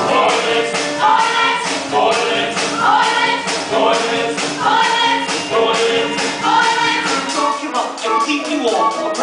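Stage musical cast singing together in chorus over band accompaniment with a steady beat.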